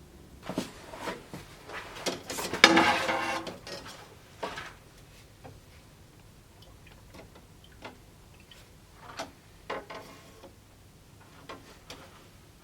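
Scattered knocks and clicks of objects being handled. A louder scraping rattle comes about two to four seconds in, followed by a few fainter, isolated knocks.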